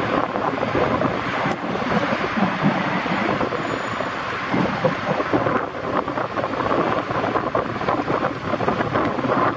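Wind buffeting the microphone over choppy sea water, a loud, uneven rush with no clear engine tone.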